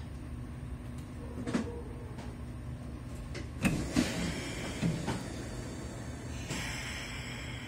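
Kintetsu 6432-series electric train standing at a station, its onboard equipment humming steadily. A few knocks and clunks come in the middle, and a steady hiss starts about two thirds of the way in.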